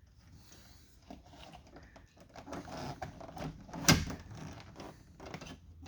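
Small clicks and rattles of a pickup truck's rear-door lock and trim parts being handled and fitted, with one sharp snap about four seconds in.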